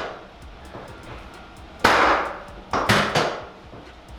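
Two sharp mechanical clunks about a second apart, each dying away quickly, typical of the sections of a chiropractic drop table giving way under a thrust during a face-down pelvic adjustment.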